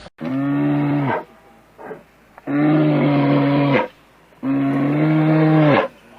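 A cow mooing three times, each moo a long, steady call that drops in pitch as it ends.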